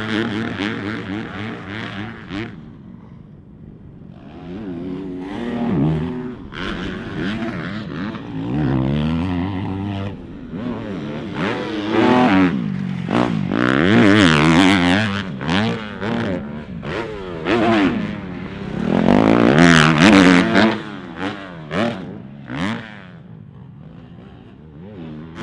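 Dirt bike being ridden hard around a supercross track, the engine revving up and dropping off again and again through the throttle. The bike swells loud in several pulls, with quieter stretches between as it moves farther off.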